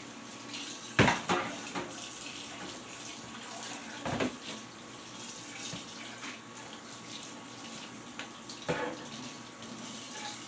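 Kitchen faucet running into a stainless steel sink while dishes are washed by hand, with a few sharp knocks and clanks of dishes against the sink. The loudest knock comes about a second in and another comes late.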